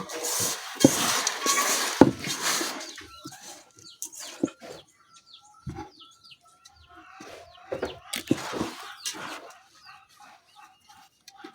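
Flock of layer hens clucking and calling with many short, quick calls. A loud noisy flurry with a few sharp knocks fills the first few seconds, and another comes about eight seconds in.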